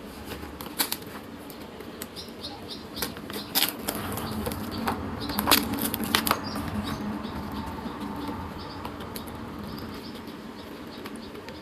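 Poultry flapping their wings in irregular flurries, with scattered sharp clicks and rustles.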